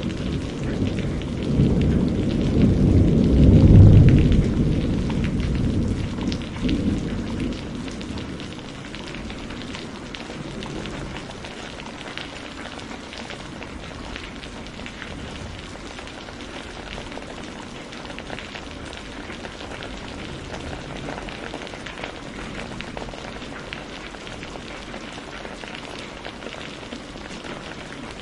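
Heavy rain pouring steadily, with a long roll of thunder at the start that swells to its loudest about four seconds in and dies away by about eight seconds.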